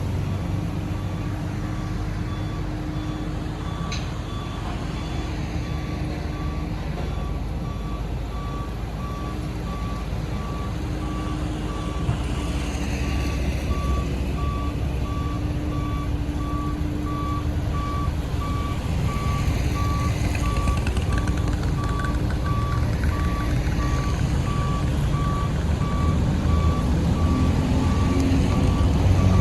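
Reversing alarm of a heavy diesel machine beeping at a steady, regular pace over the low, steady running of its engine. The sound grows a little louder toward the end.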